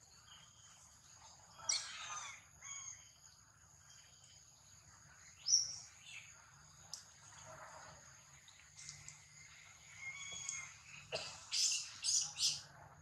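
Short shrill squeals and chirping calls from long-tailed macaques, scattered through, with the loudest run of three or four squeals near the end, over a steady high-pitched background whine.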